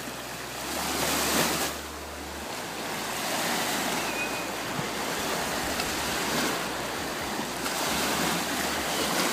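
Small waves washing and breaking in shallow water, a steady rushing wash, with wind rumbling on the microphone.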